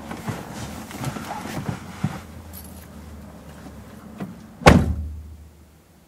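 A person climbing out of a car's front seat, with clothes rustling and shifting, then the car door shut with one loud thump about four and a half seconds in, heard from inside the cabin.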